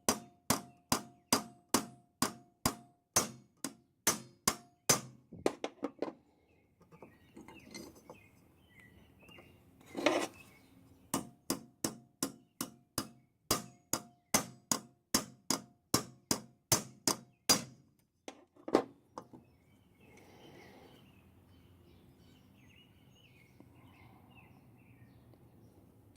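Rapid light metallic taps, about three a second, on channel-lock pliers laid across a nitro engine's flywheel, knocking the flywheel off the crankshaft; it stays stuck on. Two runs of tapping with a louder single knock between them, then a few scattered knocks and quiet handling.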